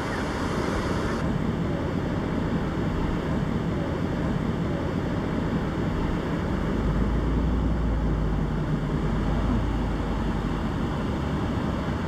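Steady wash of low surf breaking on a sandy beach, with wind. A deeper low rumble swells from about seven seconds in and fades near the end.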